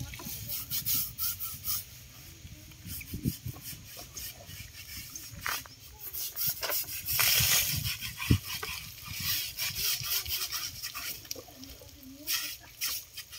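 Irregular splashes of water and rubbing as an elephant is washed with water from a bucket, the biggest splash with a knock about eight seconds in.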